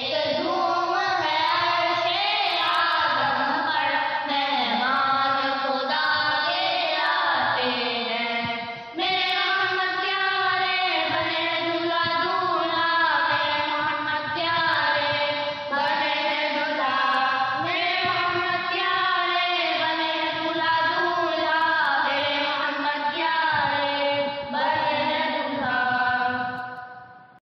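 Voices singing an Urdu naat (devotional qasida) in a chanting style, which fades out near the end.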